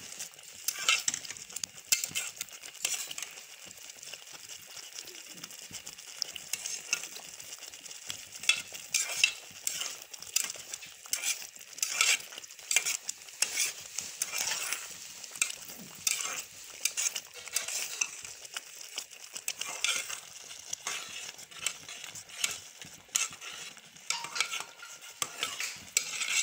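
Slotted spatula stirring and scraping thick semolina-and-egg halwa around a steel pot, in repeated irregular strokes, over a steady sizzle of the halwa cooking in ghee.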